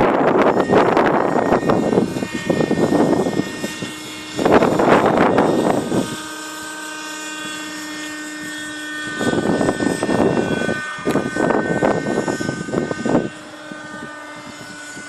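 Thunder Tiger Raptor 30 RC helicopter in flight, its small two-stroke nitro engine and rotors running with a steady high-pitched whine. Loud surges of rushing noise come and go three times over it.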